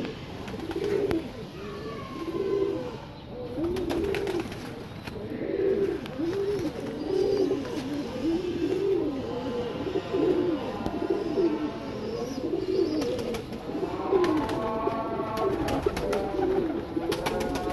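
Domestic pigeons cooing steadily, a low rising-and-falling coo repeating about once a second. A higher-pitched sound of several tones rises and then holds over the coos near the end.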